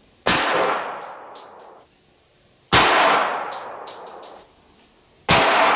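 Three 9mm pistol shots from a Glock 19, about two and a half seconds apart, each a sharp crack with a long echoing tail. Between the shots come light, ringing metallic clinks of ejected brass casings landing.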